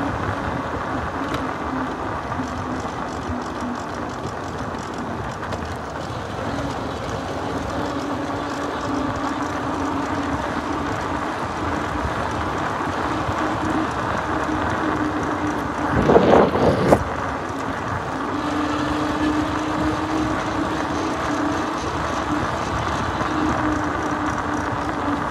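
Motorcycle engine running at a steady cruising speed, with wind and road noise rushing over the handlebar-mounted phone's microphone. About sixteen seconds in there is a brief, louder burst of noise.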